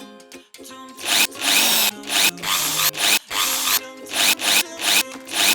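Toy drill motor whirring in repeated short bursts as the trigger is pressed and released, starting about a second in.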